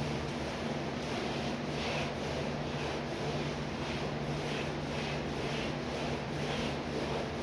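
A cloth rag wiping a wall and baseboard in quick back-and-forth strokes, about two a second, over a steady low hum.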